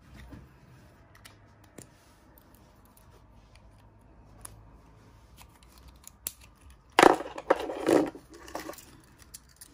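Light plastic clicks of a Mercedes-Benz key fob being handled and its metal emergency key blade pushed in. About seven seconds in comes a louder clatter for a second or so as the car keys and their metal key rings are set down on the table.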